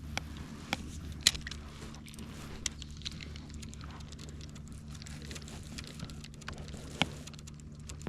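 Scattered small clicks and rustles of fishing tackle being handled while a lure is changed, over a steady low hum. Two sharper clicks stand out, about a second in and near seven seconds.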